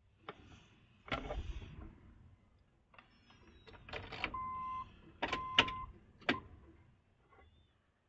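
Clicks, knocks and rattles from handling around a car's steering column and ignition, with two short, steady electronic beeps about a second apart a little past the middle.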